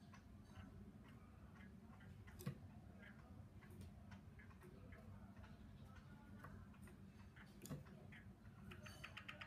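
Faint scattered ticks and light clicks over a low steady room hum, with two sharper knocks about two and a half seconds in and near the end: a caged Chinese hwamei moving about on the perches of its bamboo cage.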